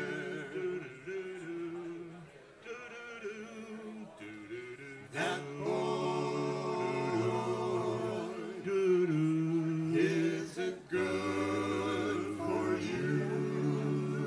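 Men singing in close vocal harmony with no instruments, holding long chords. There are brief breaks for breath about five seconds in and again near eleven seconds.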